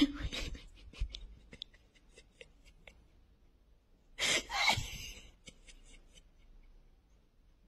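Two breathy gasps from a person, a short one at the start and a longer one about four seconds in, with soft scattered clicks between.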